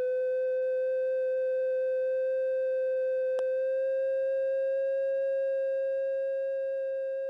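A steady test tone played back from a Tascam Porta 02 cassette machine whose motor speed is set by a PWM pitch controller. The pitch steps up slightly, from about B-flat to B above middle C (466 to 493 Hz), as the speed is raised. There is a single short click about three and a half seconds in.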